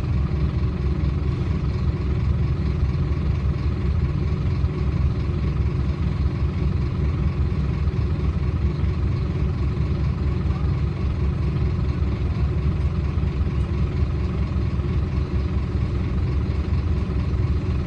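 Scania OmniDekka double-decker bus's diesel engine running steadily, heard from inside the passenger saloon as an even low hum with no change in pitch.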